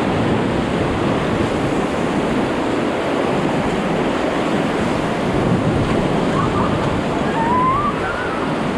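Rushing whitewater of a river rapid as an inflatable raft runs through it, with wind buffeting the microphone.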